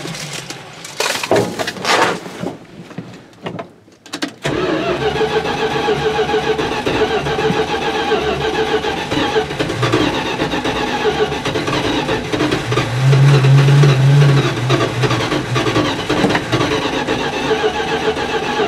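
Dodge pickup's 318 V8 with a one-barrel carburetor being cranked and struggling to start: a few uneven bursts over the first four seconds, then a steady run of engine sound from about four and a half seconds in. The engine is hard to start because of a plugged fuel filter, and the owner suspects it is also a little flooded.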